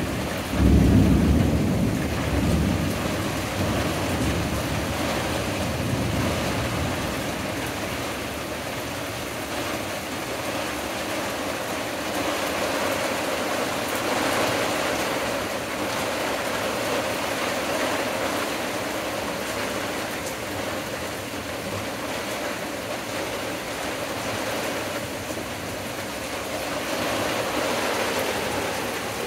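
Steady rain falling in a thunderstorm, with a loud rumble of thunder about a second in that dies away over the next few seconds.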